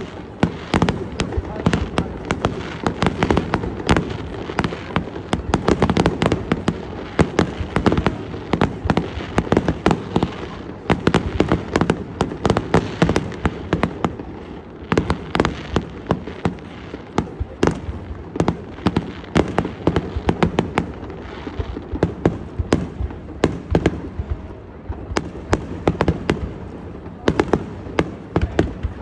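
Fireworks display in full barrage: aerial shells and ground fountains firing together, a continuous rapid run of sharp bangs and pops, several a second, over a steady low rumble.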